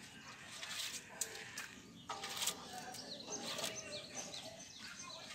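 Faint outdoor background of small birds chirping, with low distant voices and a couple of light knocks about a second in.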